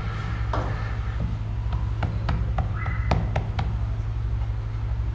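Hands patting and pressing maize-flour dough flat on a wooden board, with a quick run of sharp clicks about two to three and a half seconds in, over a steady low hum. Two short high calls come through about half a second in and again near three seconds.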